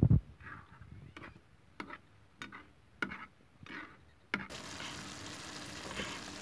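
Plastic spatula stirring vegetables and liver in a wok, knocking against the pan in a string of short clicks about every half-second, after a loud thump at the start; from about two-thirds of the way in a steady hiss of frying takes over.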